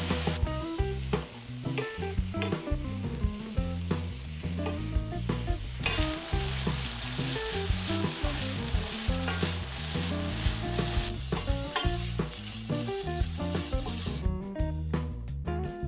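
Shrimp fried rice ingredients sizzling in an oiled frying pan while a spatula stirs and scrapes them, with frequent short scraping taps over a steady sizzle.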